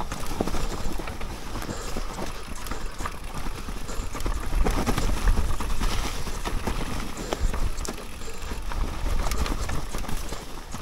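Downhill mountain bike riding fast over a leaf-covered dirt trail: tyres rolling over leaves and roots, with a steady stream of small knocks and rattles from the bike and a low wind rumble.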